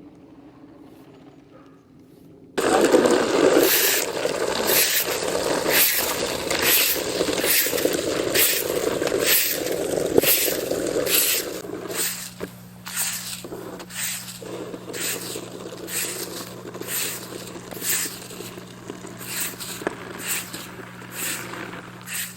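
Snow being cleared with rhythmic scraping strokes, about one and a half a second, starting suddenly a few seconds in and getting softer about halfway through; a steady low hum joins at that point.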